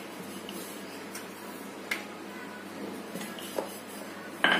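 Wooden rolling pin rolling out a round of dough on a wooden board: a soft low rolling sound with a few light knocks of wood on wood, the loudest near the end.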